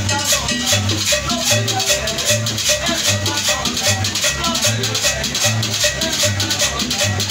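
Live Latin dance music: a low drum beat about twice a second with fast maraca-like shaker strokes over it.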